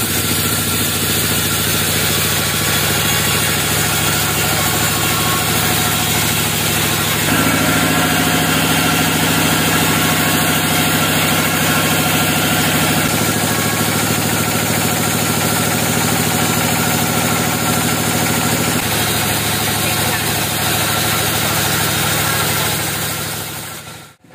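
Log band sawmill running, its band-saw blade cutting lengthwise through a log: a loud, steady machine drone with hiss that grows louder about seven seconds in and shifts in tone a couple of times, then cuts off sharply just before the end.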